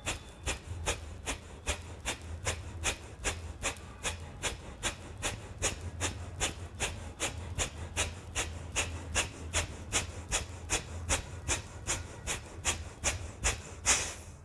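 A woman's rapid, forceful exhalations in a steady rhythm, about three sharp puffs of breath a second, as a yoga breathing exercise.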